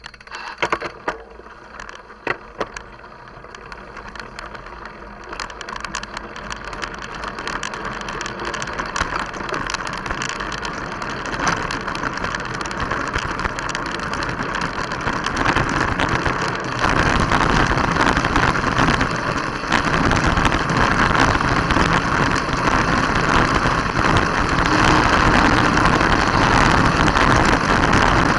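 Mountain bike riding over a dirt track, heard from a camera mounted beside the rear wheel: rolling tyre noise, wind and rattling of the bike and mount. It starts with a few sharp knocks and grows steadily louder as the bike picks up speed, loudest over the last ten seconds or so.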